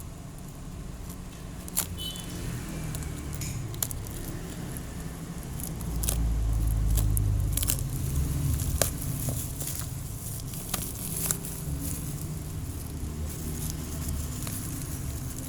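Handling noise from unboxing: scattered sharp clicks and taps with rustling, over a low rumble that swells for a couple of seconds in the middle.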